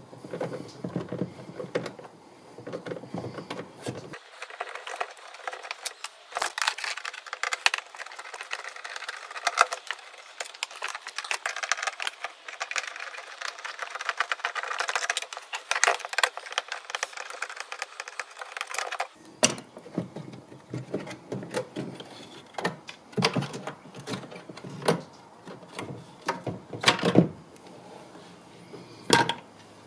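Hand work inside a car door: a small Torx screwdriver undoing the stock door speaker's screws and the speaker being pulled out, giving irregular clicks, taps and light rattles of metal and plastic.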